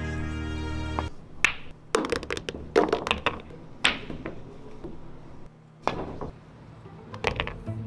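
Music stops about a second in, then pool balls clack in a string of sharp clicks: cue tips striking the cue ball and balls knocking into one another, mixed with a few duller knocks.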